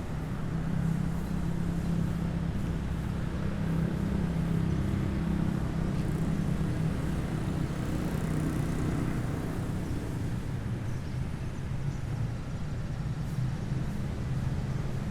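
City street traffic: vehicle engines running with a steady low hum and road noise.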